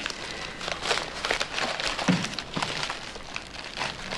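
Two people sitting down at a wooden table: wooden chairs scraping and knocking on the floor, with rustling clothes and a series of light knocks and handling noises.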